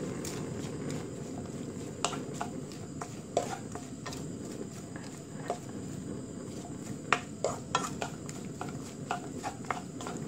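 Wooden spoon stirring sliced onions in a nonstick wok-style pan, with irregular light knocks and scrapes of the spoon against the pan over a steady low rushing noise; the sharpest knock comes about seven seconds in.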